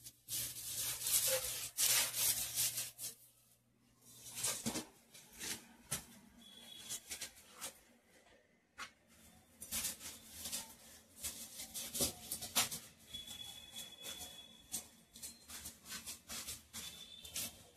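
Long-handled broom brushed and scraped against the walls and ledges in irregular strokes, sweeping down cobwebs and dust.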